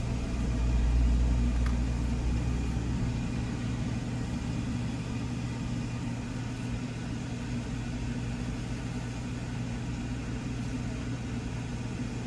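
Car engine running at low speed, heard from inside the cabin as a steady low hum, with a deeper rumble that swells in the first couple of seconds and then settles.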